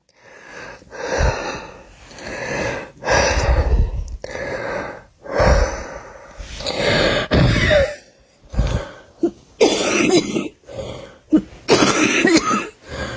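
A person coughing over and over: hard coughs about a second apart, then shorter coughs coming faster in quick runs near the end.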